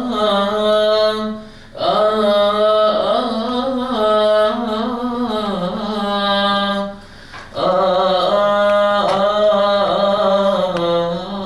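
Unaccompanied Coptic Orthodox liturgical chant in a male voice: long, drawn-out melismatic notes. The chant breaks off briefly for breath about two seconds in and again about seven seconds in.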